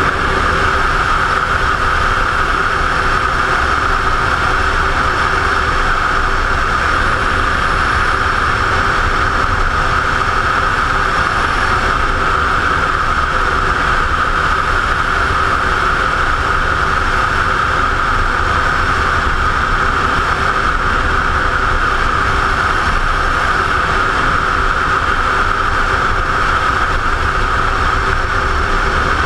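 Ducati motorcycle cruising at a steady road speed: wind rush over a helmet-mounted camera mixed with the engine's running drone, even throughout without any revving up or down.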